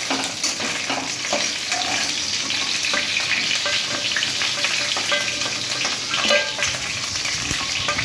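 Katla fish heads sizzling in hot oil in a kadai, fried through, with a metal spatula scraping and clicking against the pan as the heads are lifted out; one louder knock a little over six seconds in.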